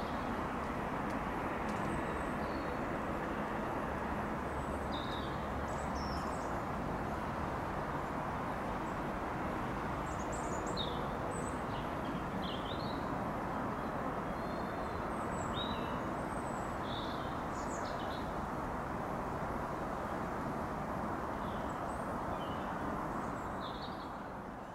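Steady low rumble of a GWR Class 165 Network Turbo diesel multiple unit running away into the distance, easing off near the end. Small birds chirp over it.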